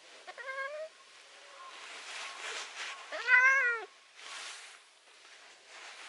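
A domestic cat meowing twice while being stroked: a short rising meow near the start, then a louder meow a little past the middle that rises and falls in pitch. Soft rustling comes between the calls.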